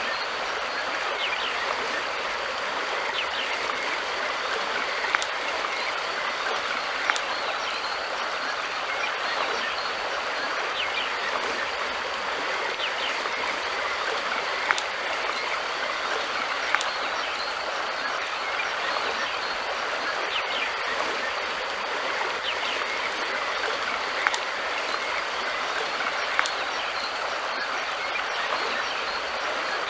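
River water flowing steadily. A few sharp clicks stand out, in three pairs about two seconds apart.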